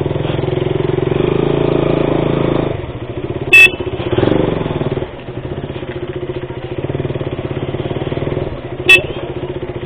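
Single-cylinder KTM Duke motorcycle engine running at low revs as the bike rolls off slowly. Two short, loud horn beeps, about three and a half seconds in and again near the end.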